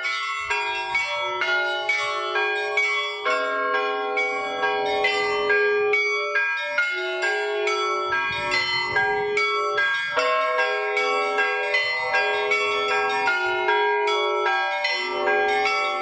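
Church bells ringing: several bells of different pitches struck in quick succession in a continuous, rhythmic peal, their tones overlapping and ringing on.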